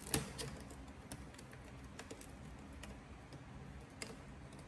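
Fingers handling the opened iPad 3's parts: a few separate light clicks and taps, with one louder knock just after the start.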